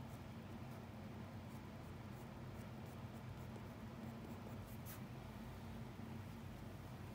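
Drawing pencil scratching lightly on paper in short strokes, one a little sharper about five seconds in, over a low steady hum.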